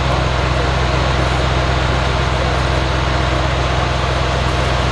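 Tuned Audi RS Q8's twin-turbo V8 idling steadily, with no revs.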